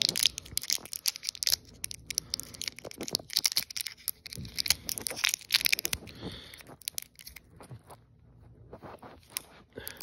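Clear plastic battery wrapper being torn and crinkled by hand: irregular crackling and tearing, thinning out after about seven seconds.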